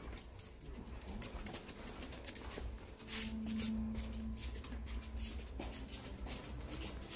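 Faint scattered clicks of a Maltese's claws on a hard floor as it walks about, over a low steady room hum. A short low tone lasting about a second comes about three seconds in.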